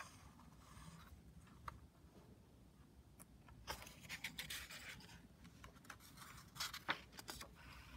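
Faint rustling and scraping of a picture book's paper page being handled and turned, in two short spells about four and seven seconds in.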